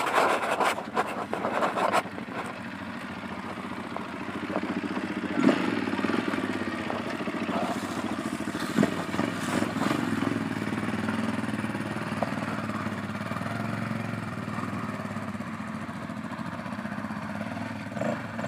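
Small off-road vehicle engine running, loud and uneven for the first couple of seconds, then settling to a steadier, lower running sound with a few brief surges.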